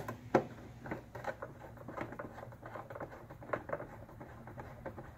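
Phillips screwdriver turning a screw into a plastic battery case lid: a run of small, irregular clicks and scrapes, with a sharper click about half a second in, thinning out toward the end.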